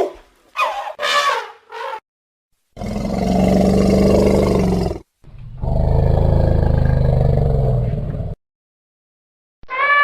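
Wild elephant calls: a few short, higher-pitched cries, then two long, low roars of about two seconds each with silence between them. A steady, high-pitched trumpet starts near the end.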